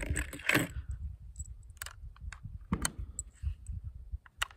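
Rifle cartridges being pressed one by one into an AMEND2 polymer AR-15 magazine, a series of irregular sharp clicks, over a low wind rumble on the microphone.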